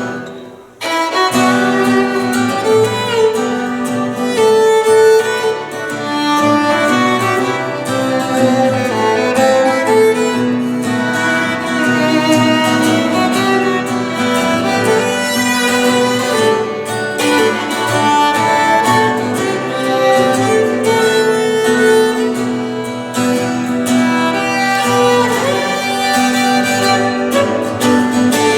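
Instrumental break in a live song: a bowed violin carries the melody over guitar accompaniment. The music drops out for a moment just after the start, then plays on steadily.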